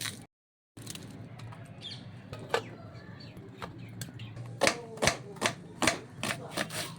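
Kitchen utensils clicking and knocking irregularly over a steady low hum. The knocks grow louder and closer together a little past halfway.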